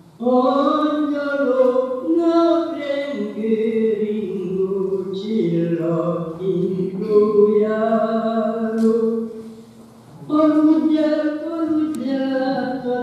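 A woman singing a Matyó (Hungarian) folk song alone and unaccompanied, in long held, gliding phrases with a breath break about ten seconds in; an old sound recording played back.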